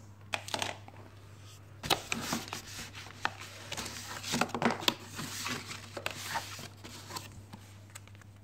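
Plastic packaging crinkling and a cardboard box rustling as items are handled and pulled out of it, in uneven crackles and scrapes, busiest in the middle. A faint steady low hum runs underneath.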